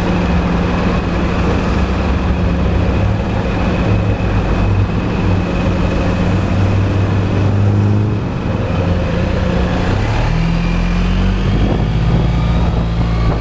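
Suzuki Burgman 650 maxi-scooter's parallel-twin engine running steadily at low speed, its note shifting about ten seconds in.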